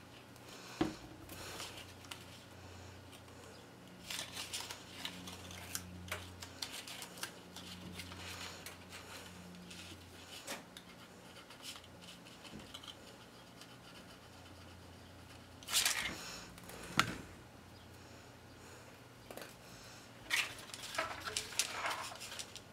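Cardstock pieces being handled and pressed together as small glued tabs are stuck down: scattered light rustles, taps and clicks, with a louder rustle and a sharp tap about two-thirds through and a flurry of rustling near the end. A faint steady hum runs underneath.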